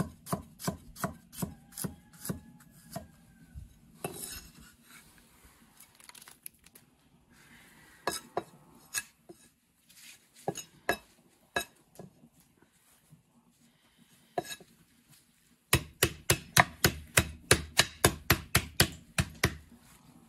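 Cleaver chopping on a thick wooden chopping block: a quick run of about four to five strokes a second slicing carrots, a brief scrape about four seconds in, a few scattered knocks, then another fast, louder run of strokes cutting scallions near the end.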